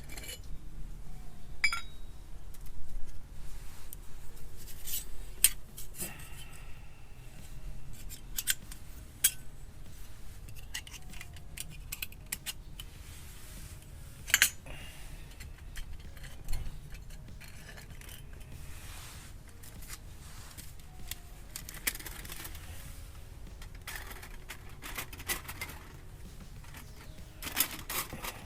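Scattered clicks and light clinks of small hard objects being handled, with a few sharper ones about five and fourteen seconds in and again near the end.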